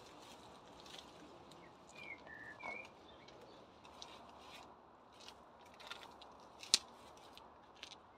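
Gloved hands pulling weeds from a pebble-covered bed: scattered light clicks of pebbles knocking together as the plants are tugged out, with one sharper click near the end.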